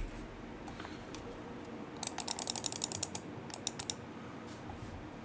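Typing on a GMK 67 mechanical keyboard with lubed Akko Cream Yellow V3 Pro linear switches: a few light key taps, then a quick run of about a dozen keystrokes about two seconds in, and four more a moment later.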